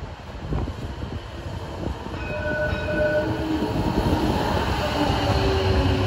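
CAF tram of the Belgian coastal line passing close by, its rumble on the rails growing steadily louder as it nears, with steady whining tones joining about two seconds in.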